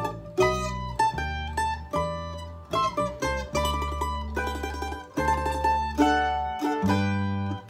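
F-style mandolin and acoustic bass guitar playing a slow instrumental melody together. Plucked mandolin notes sound over bass notes held for about a second each.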